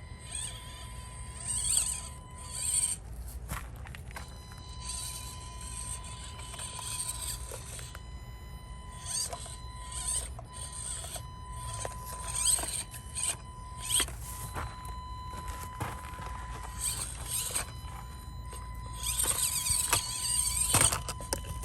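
Axial SCX24 Deadbolt mini RC crawler's small electric motor and gears whining in short stop-and-go bursts as it crawls over obstacles, with scattered clicks and knocks, busiest near the end.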